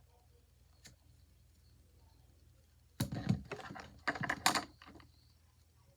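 A single click about a second in, then a quick cluster of sharp clicks and taps lasting about two seconds, starting about three seconds in.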